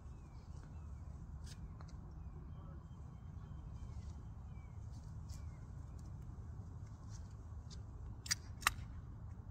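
Outdoor ambience: a steady low rumble with faint, repeated small bird chirps, and two sharp clicks close together near the end.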